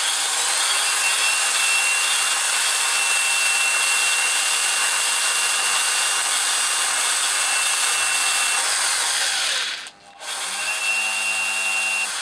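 Cordless screwdriver spinning an engine valve against its seat in a 139QMB moped cylinder head to lap it in: a steady grinding hiss with a thin motor whine. It stops for a moment near the end and starts again.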